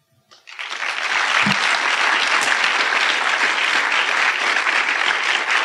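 Audience applauding at the close of a talk: the clapping starts about half a second in, builds within a second, then holds steady and dense.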